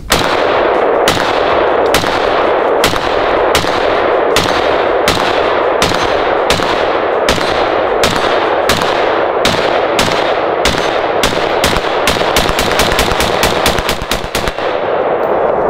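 Steyr AUG 5.56 mm bullpup rifle firing a long string of single shots, about one every three-quarters of a second, then a quicker run of three or four shots a second near the end.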